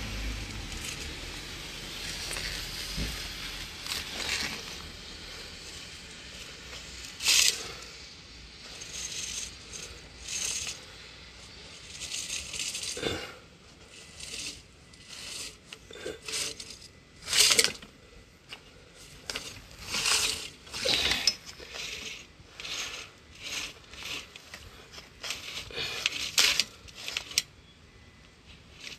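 Irregular short clinks, knocks and rattles of hard stone rubble against a drain camera head and its push rod in a broken, rubble-choked drain pipe, a few bursts louder than the rest.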